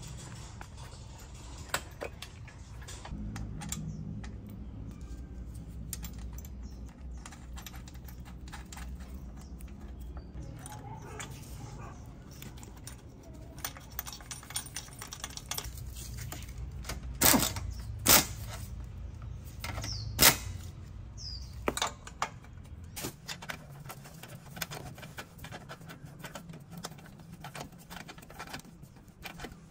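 Light clicks and clinks of small metal parts and hand tools being handled, with a few sharper knocks a little past halfway, over a low steady hum.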